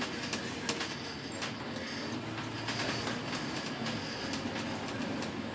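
Inside a moving double-decker bus: steady engine hum and road noise, with frequent irregular clicks and rattles.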